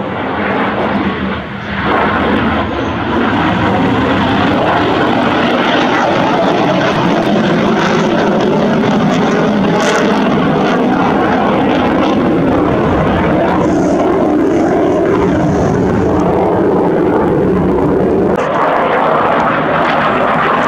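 Eurofighter Typhoon jet fighter flying overhead, its twin EJ200 turbofan engines making a loud, steady jet noise that turns brighter and hissier near the end.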